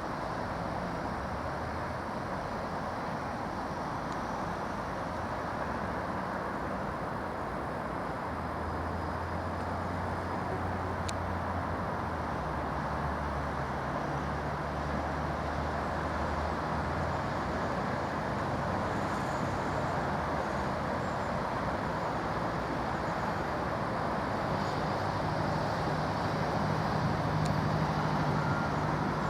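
Diesel locomotive engine running, a low engine note coming and going over steady background rumble, getting gradually louder toward the end.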